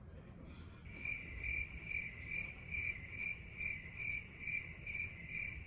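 Phone timer sounding a rapid run of short, high electronic beeps, about three a second, starting about a second in.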